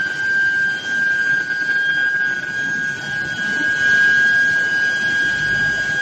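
Steel billet induction heating furnace running: a steady high-pitched whine with fainter higher tones above it, from the energised induction coils, over a continuous rumbling noise of the roller line and motors.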